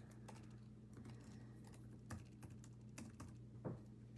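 Faint, irregular clicking of typing on a computer keyboard, over a low steady hum.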